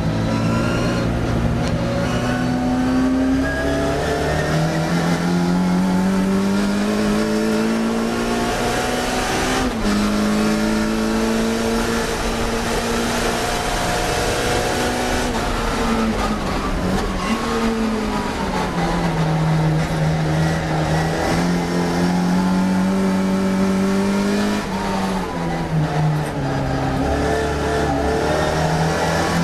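Classic Mini racing car's four-cylinder engine at full race revs, pitch climbing through each gear and dropping sharply at gear changes, with a longer falling run as the car brakes and shifts down for a corner.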